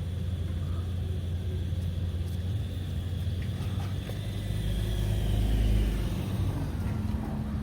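Road traffic at a signalled junction: motor vehicle engines running with a steady low rumble, which swells about five to six seconds in.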